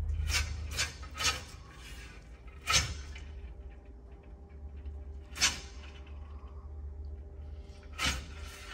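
Black-throated monitor lizard swallowing a whole fish: about six sharp, unevenly spaced clicks and knocks as it jerks the fish down its throat on a wooden board, over a low steady rumble.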